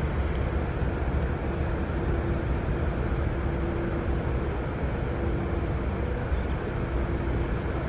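Steady low rumble of background noise, with a faint steady hum that fades in and out.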